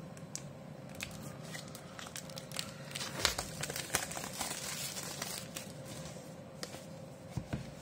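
Plastic packaging film crinkling and crackling as it is handled and pulled off a new smartphone box, with the crackles thickest in the middle few seconds.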